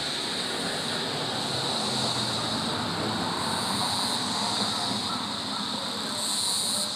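Forest insect chorus making a steady, high continuous drone, with a second, higher buzz joining about three and a half seconds in and again near the end, over a low rumble.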